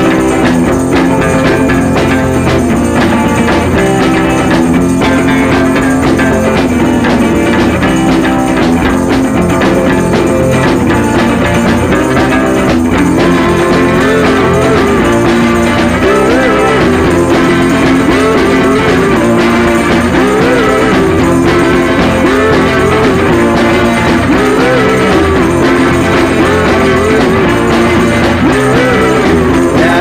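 Rock music with electric guitar playing throughout, steady and loud, with a wavering melody line from about halfway through.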